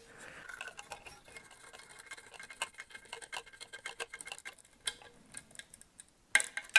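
Hand screwdriver driving a pistol-grip screw home, its ratchet giving faint, quick runs of ticking clicks, with a couple of sharper, louder clicks near the end.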